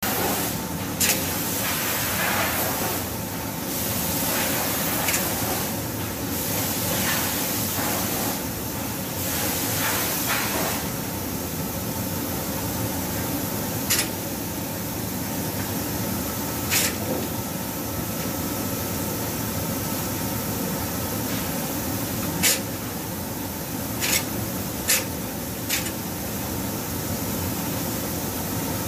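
Hand-held powder coating gun spraying powder: a steady rushing hiss of air, swelling in stronger bursts during the first ten seconds. Several sharp clicks are scattered through it.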